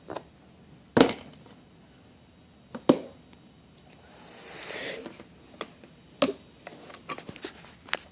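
Zippo lighters and their magnetic display case being handled: a few sharp metal clicks and clacks, a brief rustle about halfway through, then a run of small clicks near the end.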